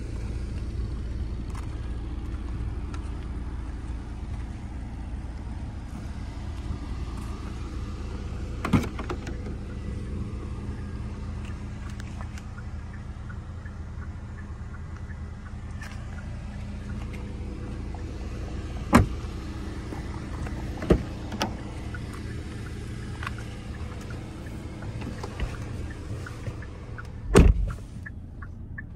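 2021 Hyundai Elantra's doors opening and shutting over a steady low rumble: a few sharp knocks and clicks spaced seconds apart, then a heavy door thump near the end.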